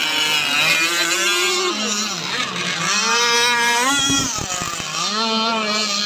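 Several radio-controlled racing powerboats running at speed, their high-revving engines whining together and gliding up and down in pitch as they throttle and turn. A brief low rumble of thumps comes about four seconds in.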